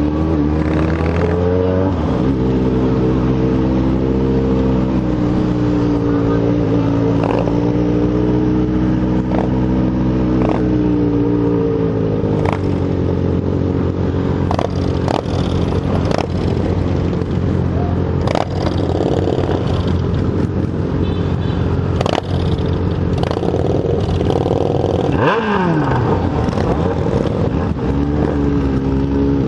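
Yamaha XJ6 N motorcycle's inline-four engine running at low parade speed, its note rising and falling gently. Sharp clicks come scattered through the second half, and the revs drop quickly about 25 seconds in.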